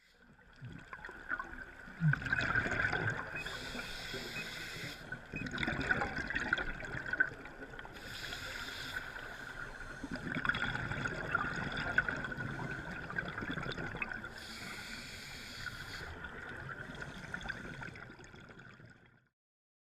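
Scuba diver breathing through a regulator underwater: a hiss on each inhalation alternates with gurgling rushes of exhaled bubbles, several breaths in all. It cuts off suddenly about a second before the end.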